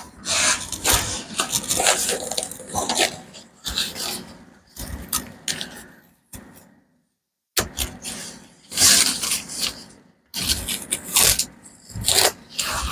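Irregular scraping and rustling of objects being handled on a workbench, in uneven bursts with short breaks.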